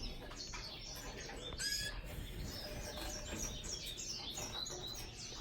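Several small aviary birds chirping and twittering, with many short, high calls overlapping.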